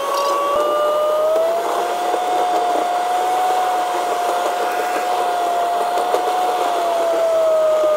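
Moving vehicle heard from inside the cab: a steady rushing noise with a whine that rises slightly in pitch about two seconds in, holds, and drops back near the end.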